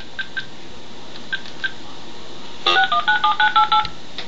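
Telephone keypad being dialed: a string of short, evenly pitched key beeps, then after about two and a half seconds a quick run of about ten dual-tone DTMF dialing tones as the number is sent.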